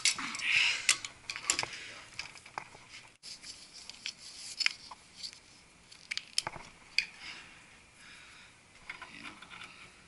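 Brass pipe fittings and a roll of thread-seal tape being handled by hand: scattered light clicks and small metallic clinks, with a short rustle about half a second in.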